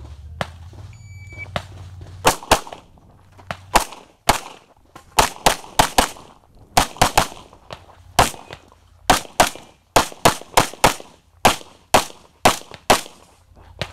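A shot-timer start beep sounds briefly about a second in. From about two seconds in, a 9mm major Open-division pistol with a red-dot sight fires about two dozen rapid shots, mostly in quick pairs a fraction of a second apart.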